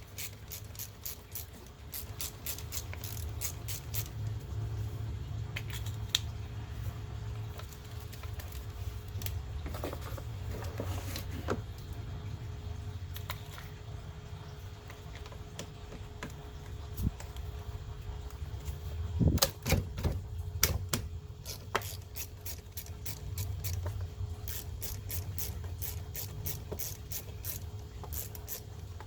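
Ratchet wrench clicking in runs as the battery's negative and positive terminal clamps are loosened, with a few louder metal knocks about two-thirds of the way through, over a steady low hum.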